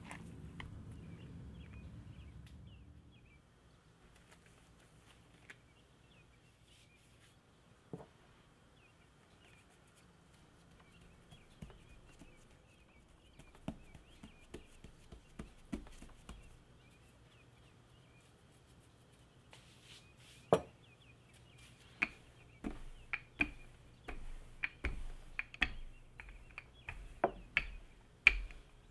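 Soft bread dough being kneaded by hand in a glass bowl for the first few seconds, then quiet handling as it is pressed flat on a floured wooden board. In the last third a wooden rolling pin rolls the dough out on the wooden board, with a run of sharp clicks and knocks.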